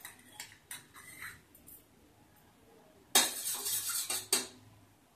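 A metal spoon clinking a few times against a small bowl as ghee is scooped, then, about three seconds in, a second or so of loud scraping and clinking of the spoon inside a stainless steel pan, ending in a sharp clink.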